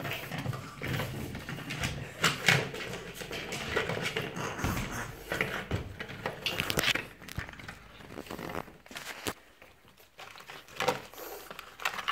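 Irregular rustling, clicks and knocks of a gift box's packaging and contents being handled, easing off to quiet for a moment near the end before a few more clicks.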